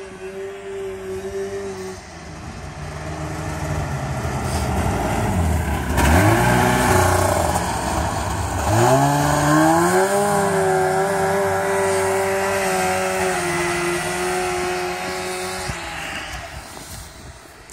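1986 Trail Manta snowmobile engine running as the sled drives through snow. Its pitch climbs, drops sharply about six seconds in, climbs again around nine seconds and holds high, then fades near the end.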